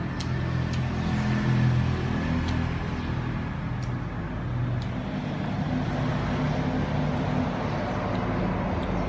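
A steady low engine drone runs throughout, with a few faint sharp clicks scattered through it.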